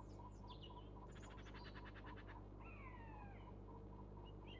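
Faint wild bird calls: high chirps, a rapid rattling chatter about a second in, then a few falling whistled calls, over a low steady hum.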